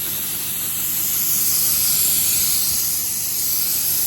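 Compressed air hissing steadily from a paint spray gun with its trigger pulled lightly, so only air comes out, used as an air gun to blow off and dry a headlight lens.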